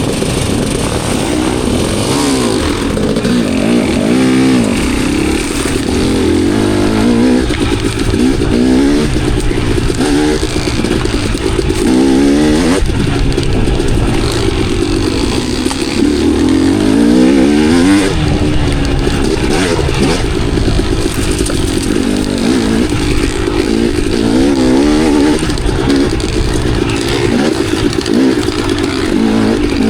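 Enduro dirt bike engine running under load on a trail ride, its revs rising and falling again and again as the throttle is worked.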